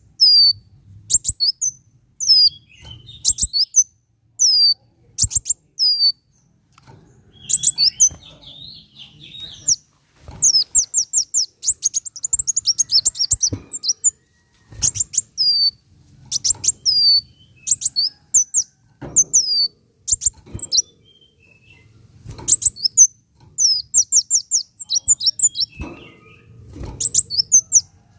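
Kolibri wulung sunbird singing: rapid high-pitched chirps and quick downslurred notes in fast bursts, each a second or two long, broken by short pauses.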